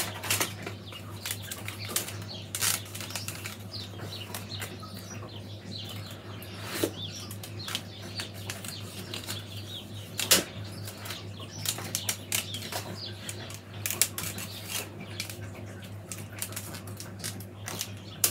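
Soaked buff willow rods being wound and tucked into a wreath hoop by hand: irregular rustling, creaking and ticking as the rods rub and flex against each other. There are a few sharper clicks, the loudest about ten seconds in.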